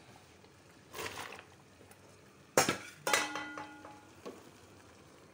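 Stainless-steel cooking pot handled on a gas stove: a scrape about a second in, then a sharp knock and a ringing metallic clang half a second apart, and a light tap near the end.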